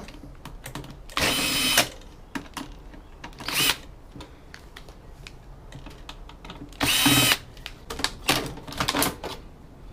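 Electric drill-driver running in short bursts, two longer runs of under a second and a brief one, backing out screws to free a motherboard from its metal chassis. Scattered clicks of handled metal parts come between the runs.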